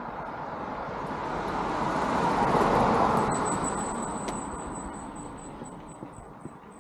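A car passing by on the street: the engine and tyre noise grows, is loudest about three seconds in, then fades away.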